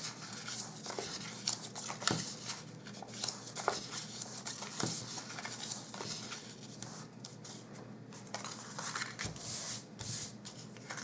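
Scored designer paper being folded and creased by hand along its score lines: irregular crinkling and rustling as fingers rub the folds flat, with a couple of soft knocks.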